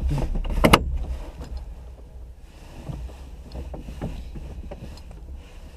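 Inside the closed cockpit of a Duo Discus glider: a sharp click less than a second in, then a steady low rumble with small knocks and rustles.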